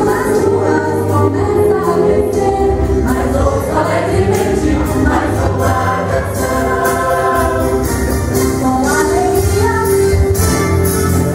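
Mixed choir of men and women singing a cheerful Christmas song in Portuguese over an accompaniment with a steady percussion beat.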